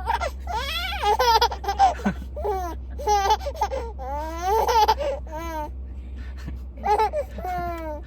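A baby about five months old laughing in a string of short, high-pitched squealing bursts, with a pause about two-thirds of the way through before two more bursts.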